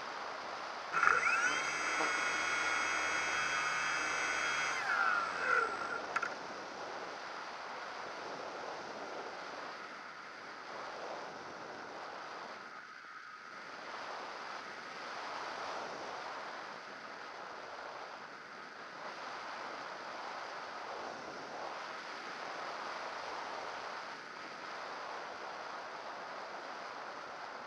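Model airplane's motor and propeller whining with several high tones for about four seconds, then winding down and cutting off about five seconds in. After that there is only steady wind rushing over the onboard camera, rising and falling slowly.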